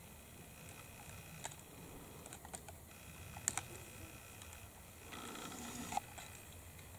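Whitetail bucks sparring, their antlers clicking and clacking together in a few scattered sharp knocks, the loudest about three and a half seconds in.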